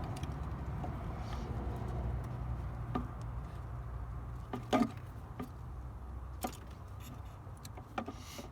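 Low steady hum with a few scattered light clicks and knocks, the loudest a double knock about five seconds in: hand and tool work on the car while the clutch is held down for bleeding.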